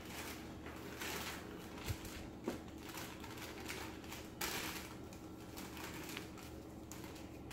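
A paper-and-plastic packet of dry cake mix being handled and emptied into a stainless steel mixing bowl: rustling and crinkling in bursts, with a few light knocks.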